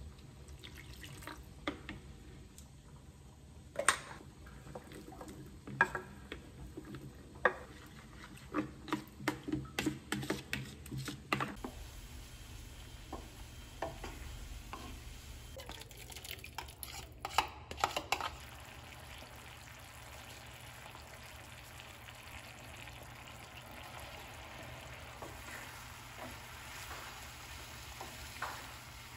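A spoon tapping and scraping against a plastic bowl as bolognese sauce is mixed, with a quick run of taps before the sound changes. Then a wooden spatula stirs fusilli pasta in a frying pan, the pan sizzling steadily.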